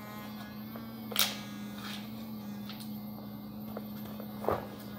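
Battery-powered electric toothbrush switched on and running: a steady low buzz from its vibrating motor. Two brief knocks, about a second in and near the end.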